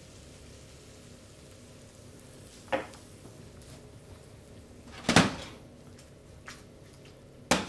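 A frying pan of creamed cabbage clattering on a range cooker's hob as it is handled: three sharp knocks a couple of seconds apart, the middle one the loudest.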